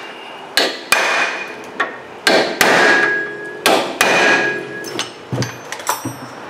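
A hammer striking a metal drift held on a brake rotor's Phillips-head retaining screw: about six firm blows with a ringing metallic clank, then a few lighter clinks near the end. The blows are meant to break the rust or Loctite holding the screw so it can be turned out.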